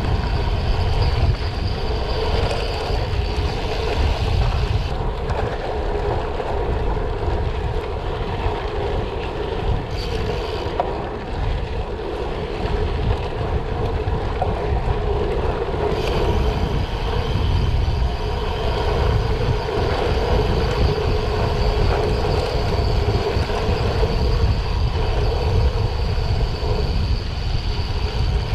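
Gravel bike (2021 Specialized Diverge Comp Carbon) rolling along a gravel road: steady tyre noise on loose gravel, with wind buffeting the microphone as a constant low rumble.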